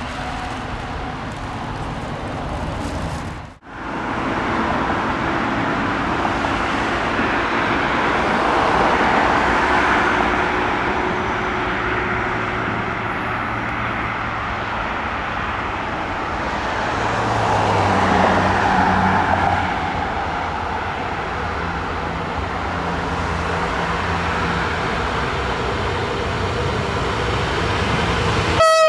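Steady rumble of passing vehicles, swelling twice and carrying a low engine drone partway through, with an abrupt break a few seconds in.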